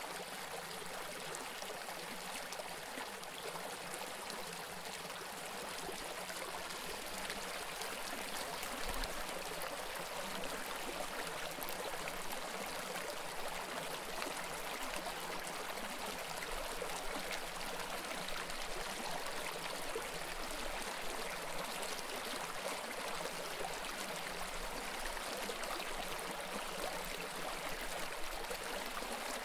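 Shallow creek flowing over rocks: a steady rush of running water.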